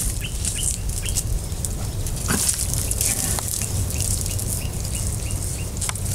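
A bird calling in a regular series of short chirps, about two to three a second, over a steady high hiss and a low rumble, with a few faint clicks.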